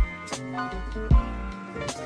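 Background music: held chords over a beat, with a deep kick drum at the start and again about a second in, and sharper high hits in between.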